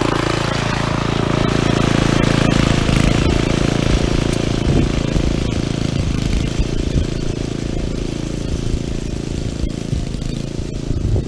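Small gasoline engine of a powered reel mower running steadily while mowing, a little louder for the first few seconds.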